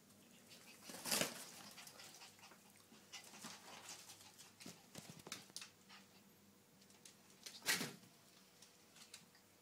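Young puppies scuffling and playing, with faint soft noises and two louder short, sharp sounds, one about a second in and one near the end.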